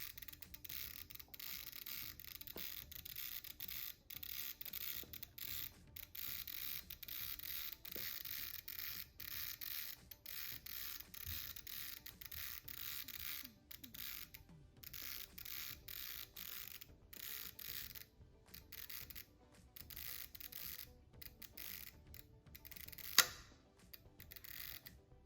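Ricohflex VIIS camera's mechanical self-timer running with a continuous whirring buzz, ending in a sharp shutter click near the end.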